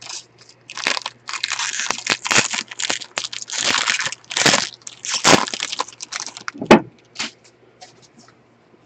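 Foil wrapper of a Bowman baseball card pack being torn open and crumpled by gloved hands: a run of dense, irregular crinkling and crackling, with the sharpest crackle just before it stops near the end.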